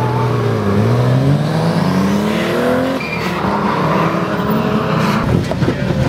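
Drift car engines revving up and falling back again and again, with tyre squeal. The sound changes abruptly about three seconds in and again about five seconds in.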